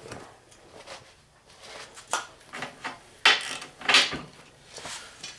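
A series of about eight irregular knocks and clunks of hand tools being handled as a ratchet is set up for a break test. The loudest come a little past three seconds and at about four seconds in.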